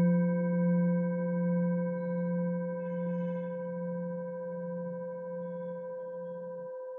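A singing bowl's long ring dying away slowly, its low hum pulsing as it fades and stopping near the end, with higher overtones held above it. A faint high shimmer comes and goes about three seconds in.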